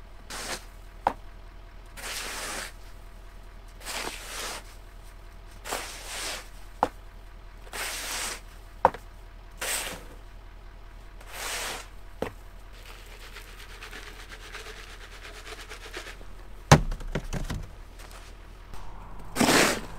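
Hand snow shovel scraping along the pavement, pushing wet, heavy snow in repeated strokes every second or two, with sharp clacks of the blade against the ground. A louder bang comes near the end.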